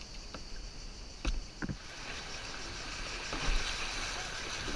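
A few knocks as kayak paddles strike the plastic hull. From about halfway, a steady rush of white water builds as the kayak runs into a riffle of rapids. The sound is muffled, heard through a waterproof camera housing.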